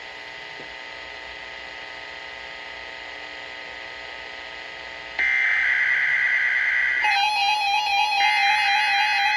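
Weather radio dead air, a steady hiss with mains hum, for about five seconds. Then the loud screechy digital data bursts of a SAME alert header begin: two bursts with a short gap, the start of the station's second test alert. From about seven seconds an electronic beeping tone that steps in pitch also sounds.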